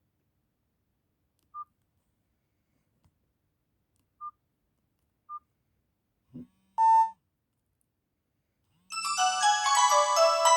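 Nokia 225 mobile phone: three short key beeps a second or more apart, a brief louder tone, then one of its built-in polyphonic ringtones starts playing near the end.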